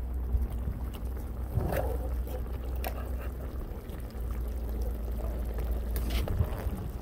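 Broth being ladled and poured back over fish in a pan, with a few short clinks of the ladle against the pan, over a steady low rumble.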